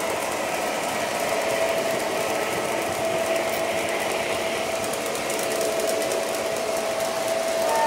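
O gauge electric model trains running at track speed: a steady whir of their motors and wheels on the rails, with faint fine clicking in the second half.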